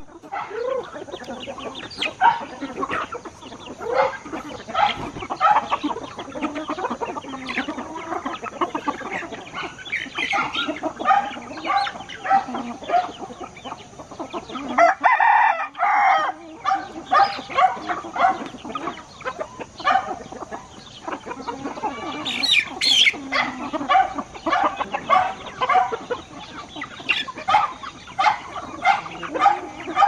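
A flock of free-range chickens clucking and calling without pause, many short calls overlapping, with roosters crowing among them; one louder, higher call stands out about three-quarters of the way through.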